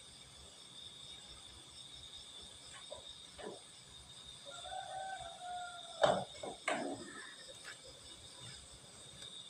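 A rooster crows once, faintly, near the middle, one call that rises and holds. Two sharp clanks of a utensil against a cooking pot follow about six and seven seconds in. Crickets trill steadily underneath.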